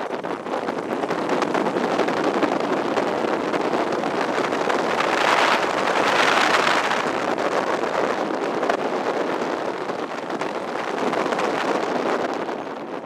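1940 WACO UPF-7 biplane's Continental seven-cylinder radial engine running at taxi power, heard from the open cockpit with propwash rushing over the microphone. The rushing swells and brightens for a couple of seconds around the middle.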